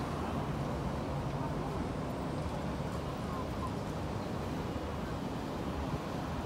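Steady city street ambience: a constant low traffic rumble with faint, indistinct voices.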